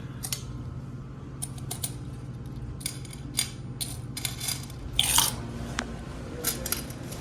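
Quarters clinking into a coin-operated toy vending machine, its coin mechanism giving a run of sharp metallic clicks, with a louder rattle about five seconds in. A steady low hum runs underneath.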